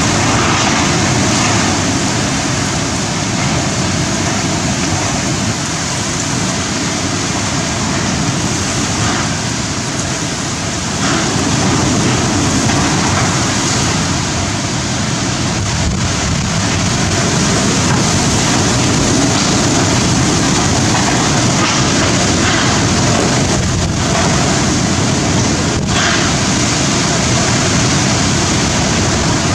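Super-cyclone wind and very heavy rain at full strength: a loud, unbroken rush that eases slightly a few seconds in and swells again about a third of the way through. A few faint knocks sound through it later on.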